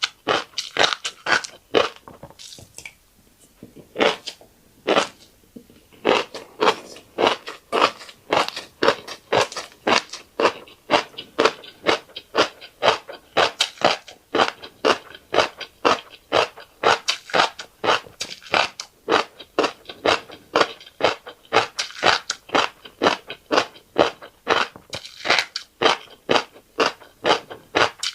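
Close-up eating sounds of fish roe and rice being chewed: steady, rhythmic crunching at about two to three crunches a second, with a short pause about three seconds in.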